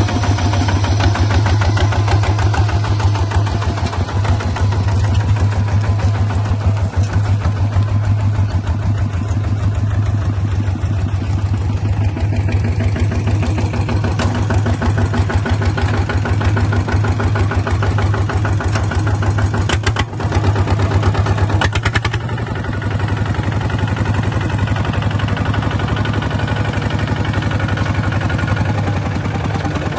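Small bulldozer's engine running steadily with a fast, even pulsing beat; its note dips briefly about two-thirds of the way through, then settles slightly quieter.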